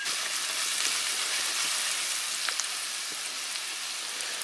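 Bacon, onions and spices sizzling in fat in a stainless steel pan on a hot wood stove: a steady frying hiss with an occasional faint pop.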